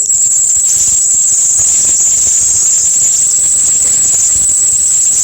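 An edited sound clip played back: a loud, steady, high-pitched hissing whine that barely changes.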